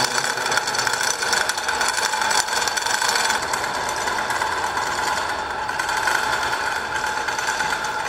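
Chain hoist running steadily as it lowers a load slung in lifting straps: a dense mechanical rattle with a steady whine.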